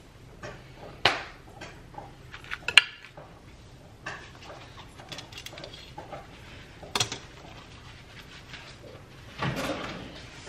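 Metal kitchen tongs clinking and scraping against a sheet pan and plates as chicken is served, a few sharp clinks spread through. Near the end a kitchen drawer slides open.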